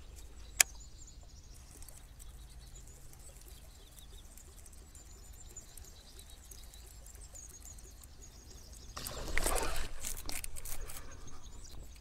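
A single sharp click about half a second in, then near the end a loud burst of splashing lasting about two seconds: a bass striking and thrashing on a topwater bird lure.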